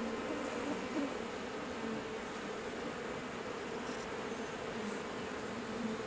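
Steady buzzing hum of a swarm of Korean native honeybees (Asian honeybees) flying in and out of their nest in a tree hollow.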